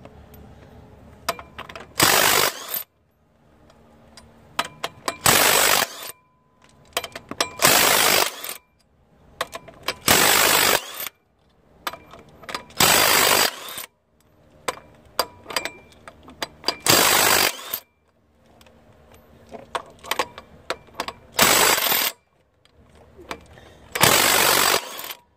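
Impact wrench hammering out flywheel bolts: eight short bursts, each under a second, a few seconds apart, with light metal clinks between them.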